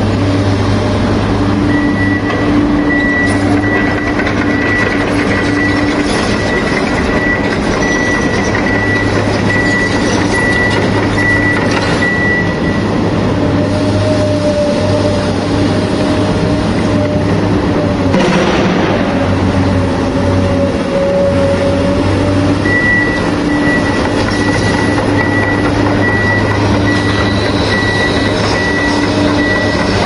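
Backhoe loader's diesel engine running steadily with a low hum. A high, repeated beeping alarm sounds for the first dozen seconds and again near the end. A wavering whine rises and falls in the middle.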